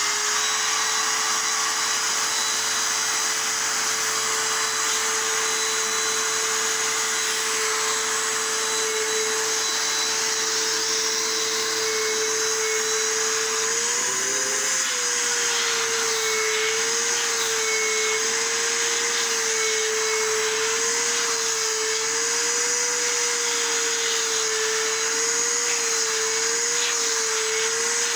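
Vacuum cleaner running steadily, its nozzle worked over a dog's coat. From about halfway through, the motor's pitch starts to waver up and down as the nozzle moves through the fur.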